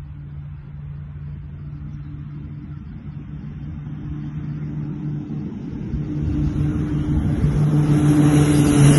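Twin-engine turboprop plane on its takeoff roll: a steady propeller drone that grows louder as it nears, with a high turbine whine joining about six seconds in.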